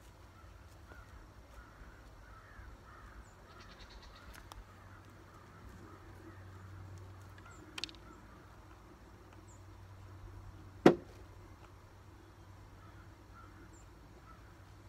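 A hammer striking the wooden shed framing: a light tap, then about three seconds later a single loud, sharp knock. Faint bird chirping underneath.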